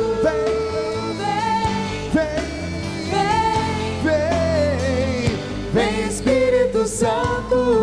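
Worship song: singers holding a sung melody into microphones over sustained instrumental accompaniment.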